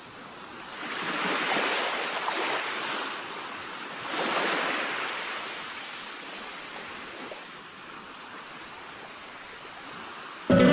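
Ocean waves breaking and washing in, swelling twice in the first half and then settling to a steadier, quieter rush. Guitar music starts abruptly just before the end.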